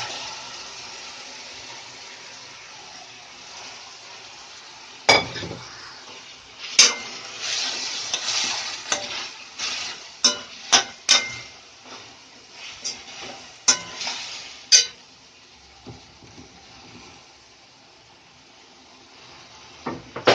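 Mutton sizzling in oil in an iron kadai, the hiss fading over the first few seconds, while a metal spoon stirs it, knocking and scraping against the pan in a run of sharp clanks between about five and fifteen seconds in.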